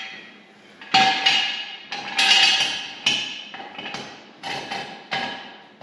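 Steel jack stands clanking as they are set and adjusted under the frame: a run of about eight sharp metal knocks, each ringing briefly.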